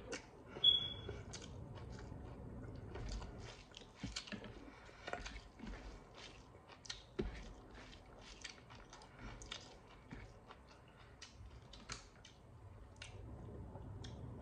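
Close-up chewing of hand-fed rice and fish: many short, wet mouth clicks and lip smacks throughout, with a brief high squeak about a second in.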